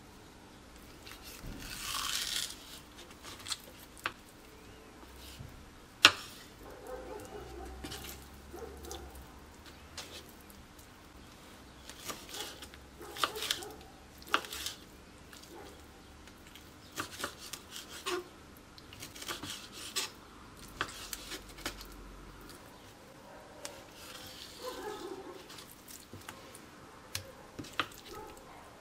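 Kitchen knife cutting raw chicken or turkey breast on a bamboo cutting board: irregular taps of the blade on the wood and short scraping strokes. The loudest sound is a single sharp knock about six seconds in.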